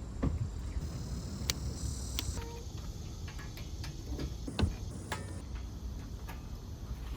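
Scattered light clicks and taps, the sharpest about four and a half seconds in, over a low steady rumble and a faint steady high tone.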